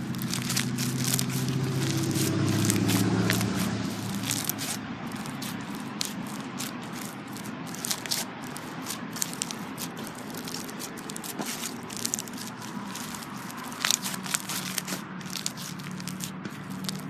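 Slime being handled: dense fine crackling and popping clicks throughout, like crunchy slime being squeezed and pressed. A low hum sits underneath for the first few seconds.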